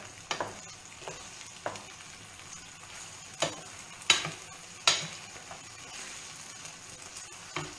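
Gnocchi in tomato sauce sizzling in a frying pan as a wooden spoon stirs them, with a few sharp knocks of the spoon against the pan. The loudest knocks come about four and five seconds in. The sauce is cooking down into the gnocchi at the finishing stage.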